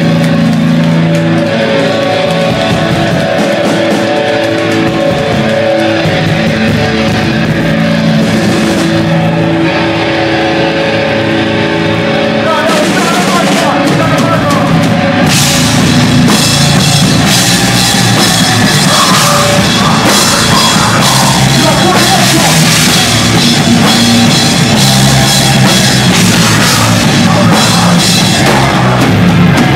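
Live sludge/deathcore metal band playing loud: heavy sustained guitar notes ring out over the first half, then the drum kit comes in with pounding drums and crashing cymbals about halfway through.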